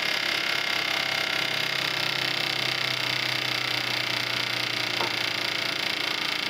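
Fuel injector cleaning and test bench running steadily, a constant mechanical buzz with a thin high whine and a low hum, with one small click about five seconds in.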